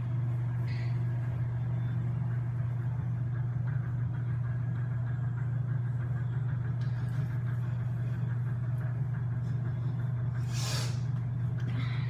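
A steady low hum with little else above it, and a brief hiss about ten and a half seconds in.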